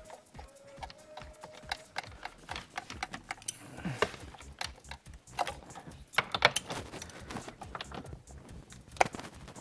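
Hand ratchet and socket clicking and clinking as they are fitted onto the steering wheel's centre bolt and the bolt is tightened. The metal clicks are irregular, with a few louder knocks about six and nine seconds in.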